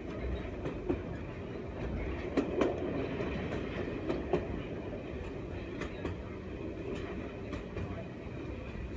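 Running noise of a Class 101 diesel multiple unit heard from inside the carriage: a steady rumble of engine and wheels on rail. A few sharp clicks come through, two pairs in quick succession a couple of seconds in and about four seconds in.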